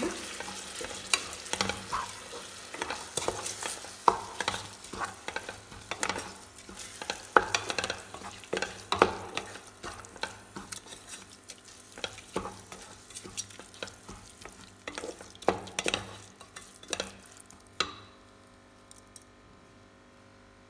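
A wooden spatula scrapes and knocks against the inside of an aluminium pressure cooker as rice is stirred and sautéed in hot oil, with a light sizzle underneath. The stirring stops about three seconds before the end.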